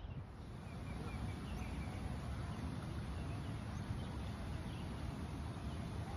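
Open-air background ambience: a steady low rush of noise with faint, scattered bird chirps.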